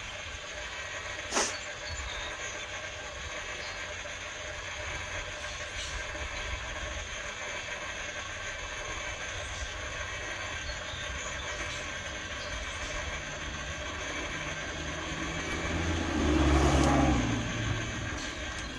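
RAM EJ-3520 electric power tongue jack's 12-volt gear motor running steadily, driving the jack leg; not very loud. A sharp click comes about a second and a half in, and a louder, deeper surge near the end.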